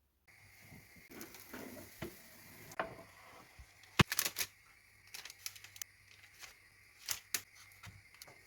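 Light clicks, taps and handling noises of kitchen work, with one sharp click about four seconds in louder than the rest.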